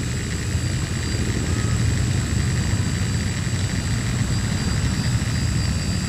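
Steady buzz of a multirotor drone's propellers and motors, with a thin high whine, heard from the drone's own microphone over a low rumble.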